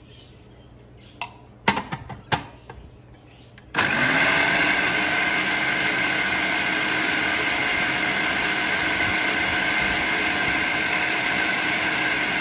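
A few short knocks, then about four seconds in an electric food processor's motor starts, rising quickly to speed, and runs steadily as it blends whipped cream and crushed garlic.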